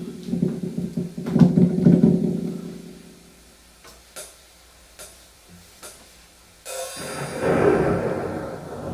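Instrumental intro of a Korean pop song backing track with drum kit: a sustained chord fades out, a few sharp ticks follow in a quiet gap, then about seven seconds in a cymbal crash as the band comes in and rings on.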